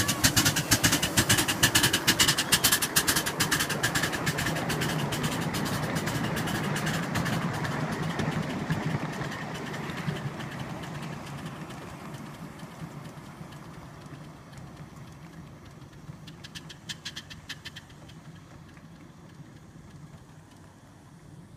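Ride-on live-steam Pacific (4-6-2) backyard-railway locomotive and its passenger cars running past, a fast rapid clatter of exhaust beats and wheels on the rails over a steady low hum, fading as the train moves away. A brief flurry of clicks comes about three-quarters of the way in.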